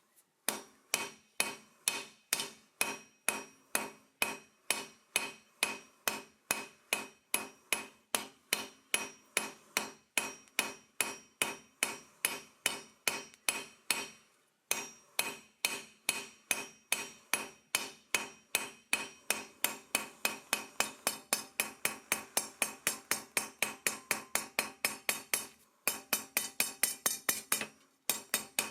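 Blacksmith's hand hammer forging steel on an anvil. The blows come in a steady rhythm of about two to three a second, each with a metallic ring, and quicken slightly later on. The hammering breaks off briefly about halfway through and twice near the end.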